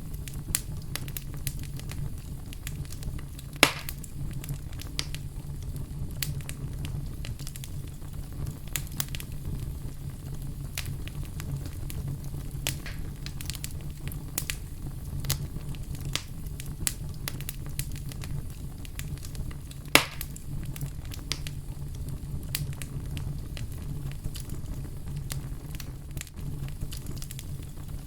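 Wood fire crackling steadily, with many small sharp crackles over a low steady rumble, and two louder pops, about four seconds in and near the twenty-second mark.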